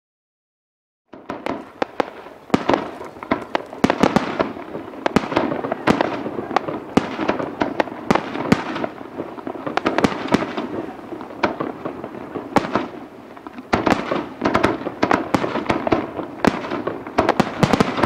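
Aerial fireworks bursting in quick succession, many sharp bangs and crackles overlapping, starting about a second in after silence, with a brief dip about three-quarters through.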